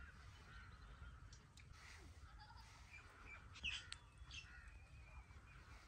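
Faint bird calls over a quiet rural background, with one short, louder call a little past halfway.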